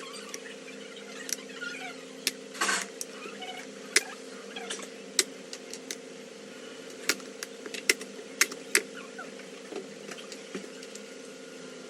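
Irregular sharp clicks and taps from handling the parts of an HP laptop being taken apart, over a steady low hum. There is a short rustling scrape about two and a half seconds in.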